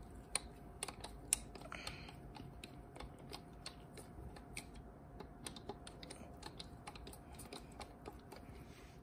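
Ratchet clicking in short, uneven runs while tightening T30 Torx bolts on a transmission retainer plate, with a few sharper clicks in the first second and a half.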